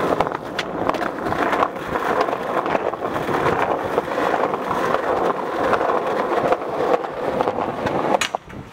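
Skateboard wheels rolling over rough concrete pavement with a steady crackling grind. Near the end comes a sharp clack as the board is popped into an ollie, and the rolling noise drops away while it is in the air.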